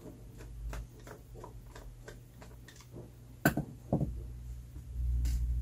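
Light clicks and ticks of a plastic calculator case and small screwdriver being handled during screw removal, with a sharper knock about three and a half seconds in and another just after. A low rumble comes in near the end.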